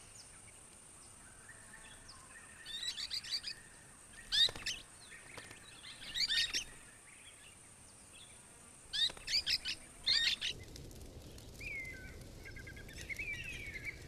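Golden-shouldered parrots calling in short bursts of sharp, rapid chirps, several bursts over the first ten seconds, over a steady high hiss that stops suddenly about ten seconds in. Softer, sliding chirps follow near the end.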